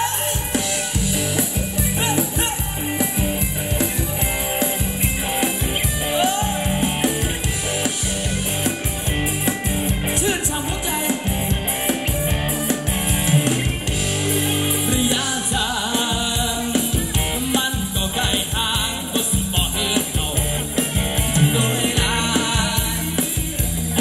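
Live band playing Thai ramwong dance music, with a steady drum beat and bass under the melody.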